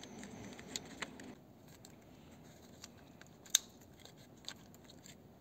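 Plastic parts of a car fuel pump module being handled and fitted together by hand: faint rubbing and a few light clicks, with one sharp click about three and a half seconds in.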